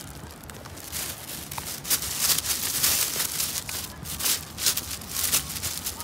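Footsteps through dry scrub and brush: an irregular run of scuffs and rustles as the walker pushes through the plants.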